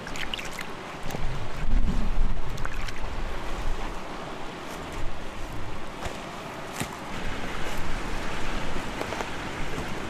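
Shallow stream running over rocks, with wind buffeting the microphone in low gusts, strongest from about one to three seconds in.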